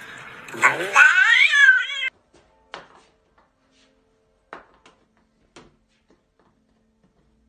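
A cat yowling: one long, drawn-out call that wavers up and down in pitch and breaks off about two seconds in. Afterwards there are a few faint soft knocks.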